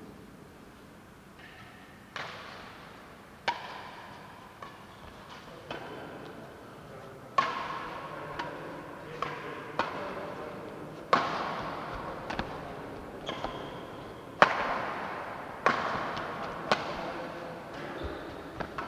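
Badminton rally: rackets strike the shuttlecock about once a second, starting about two seconds in. Each sharp crack echoes in a large hall.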